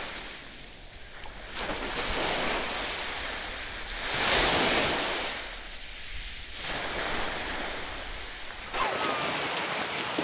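Sea surf washing in the shallows with wind on the microphone, swelling and fading in slow surges, loudest about four seconds in.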